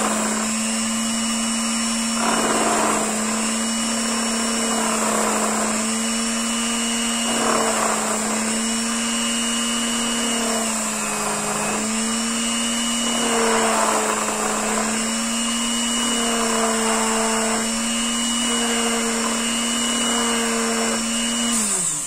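Unimat SL mini lathe running steadily with a high motor whine, while the tool cuts the steel head of a screw, giving a rasping scrape that comes and goes every two to three seconds. Near the end the lathe is switched off and the motor's pitch falls as it spins down.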